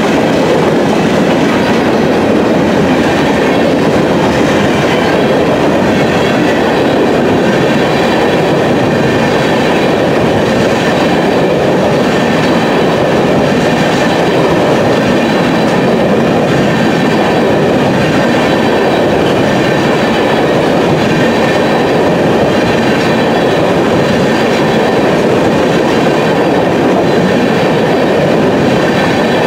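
Loud, steady noise of a freight train's covered hopper cars rolling past close by, steel wheels running on the rails with no engine or horn heard.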